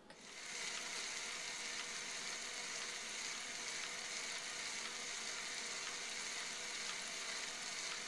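Small LEGO WeDo motor running, driving plastic pulleys, a drive belt and gears with a steady whirring gear noise. It starts up about half a second in and then runs evenly.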